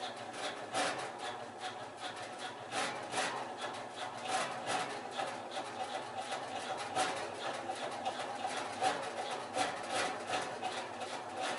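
Canarm industrial ceiling fan running on high: a steady hum with an irregular rattling, clicking vibration several times a second. The extra vibration noise comes only at high speed, and the owner traces it to a screw that keeps working loose.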